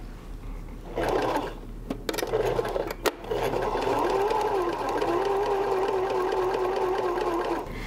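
Sewing machine stitching a straight-stitch rectangle through pinned layers of fabric. It starts about a second in, stops briefly twice early on, then runs steadily and stops just before the end.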